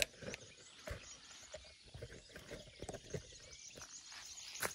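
Footsteps crunching on coarse sandy shore, irregular soft steps over faint outdoor ambience, with a sharp click at the start and another near the end.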